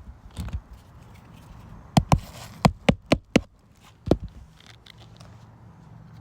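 Nails being driven into asphalt roof shingles: about seven sharp strikes, four of them in quick succession, after a few softer knocks.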